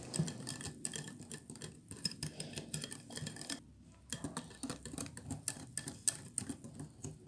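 Wire whisk stirring thin chocolate cake batter in a glass bowl: rapid clicking and ticking of the wires against the glass, with a short break about halfway through.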